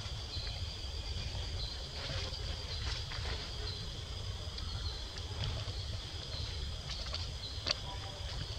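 Outdoor ambience: steady high insect chirring in a repeating pulse over a constant low rumble, with a few sharp clicks, the loudest near the end.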